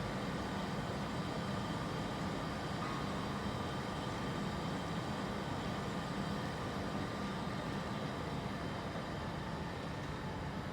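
Steady low hum of a train standing or creeping at a station platform, with a faint high whine joining about three seconds in.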